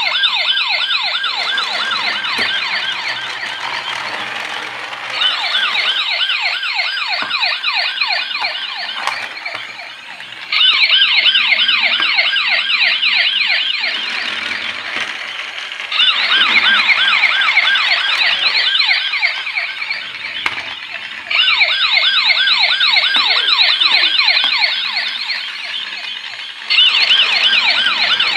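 Battery-operated toy police car's electronic siren: a fast warbling wail that restarts about every five seconds, each time jumping up in level and then slowly fading.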